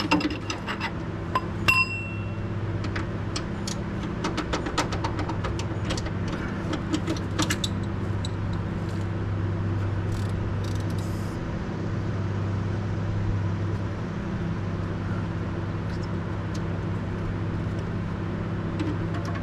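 Metal hand tools clinking and tapping against metal, with one ringing clink about two seconds in; the clinks come thick for the first several seconds and then thin out. A steady low hum runs underneath.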